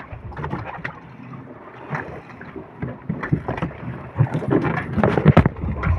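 Irregular knocks and thumps as a large, freshly caught tuna is handled against the hull of a small outrigger boat, heaviest about five seconds in, with wind on the microphone.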